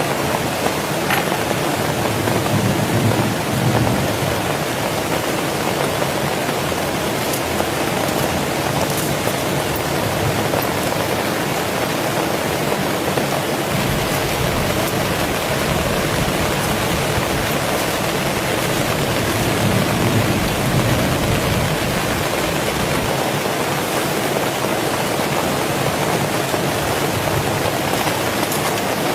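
Heavy rain falling steadily, with a low rumble swelling up twice, a few seconds in and again past the middle.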